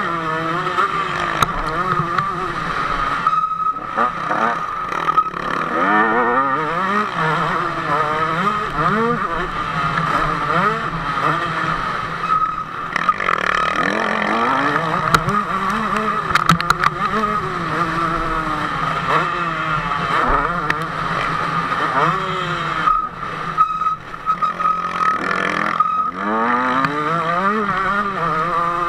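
KTM 150 SX two-stroke motocross engine heard onboard while racing, its pitch rising and falling over and over as the rider works the throttle and gears. It drops off briefly a few times when the throttle is shut.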